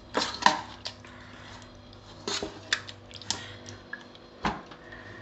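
A spoon mixing a thick, creamy chicken mixture in a rice cooker pot: irregular clinks and scrapes against the pot, about seven in all, with soft squelches of the mixture.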